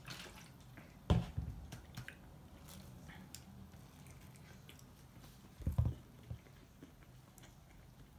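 A person biting into and chewing a large French tacos (grilled tortilla wrap): small wet clicks of chewing, with two short dull thumps, one about a second in and one just before six seconds.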